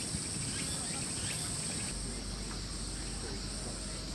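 Cicadas droning steadily in several high-pitched layers, one of them pulsing about twice a second, over a faint background murmur; a low steady hum comes in about halfway through.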